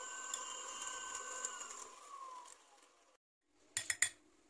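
Electric hand mixer whirring steadily as its beaters whip an egg-and-milk custard, then winding down with a falling whine about two seconds in as it is switched off. Near the end, two brief knocks.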